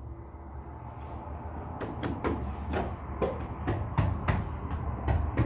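Hands patting and pressing a thin, flexible decorative wall panel flat onto wet adhesive. The panel gives a series of irregular dull thumps and slaps, starting about two seconds in at roughly three a second.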